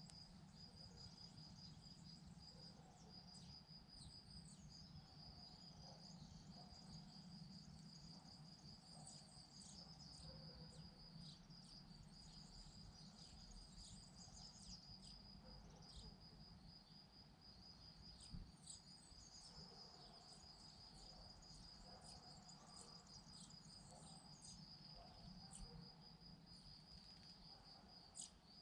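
An insect trilling steadily: a continuous, fast-pulsed, high-pitched song, with faint short high chirps scattered through it.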